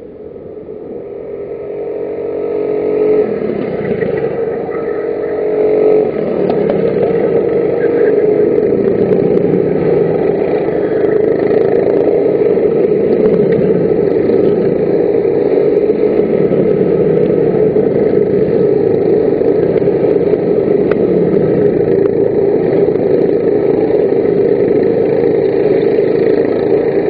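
Several racing kart engines revving hard as the karts lap the circuit. The sound grows louder over the first six seconds or so, then holds as a steady, loud mix of engines.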